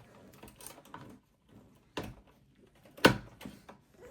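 Low-profile graphics card being fitted into a desktop PC's PCI Express slot and bracket opening: light handling noise with two sharp clicks, the louder one about three seconds in.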